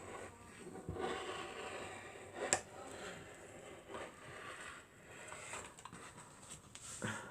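Scissors cutting through fabric, with the cloth rustling and scraping as it is handled, and a sharp snip about two and a half seconds in.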